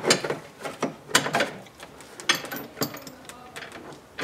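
Hand ratchet wrench with a socket extension clicking and clinking in short, irregular bursts as it works a bolt.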